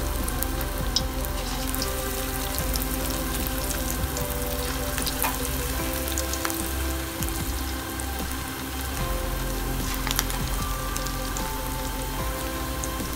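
Moong dal pakoras deep-frying in hot oil in a kadai: a steady sizzle with scattered small pops and crackles, heard with background music.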